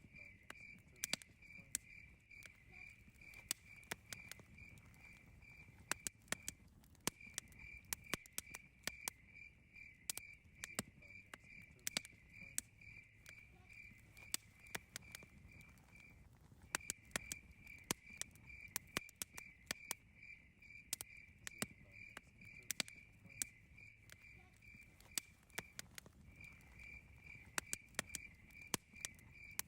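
Campfire crackling with frequent sharp pops, the loudest sounds, over a low rumble of the burning fire, while crickets chirp in a steady pulsing trill that pauses briefly three times.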